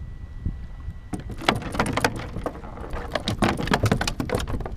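Rapid, irregular clicking and clattering of hard gear being handled on a kayak, starting about a second in, over a low rumble of wind on the microphone.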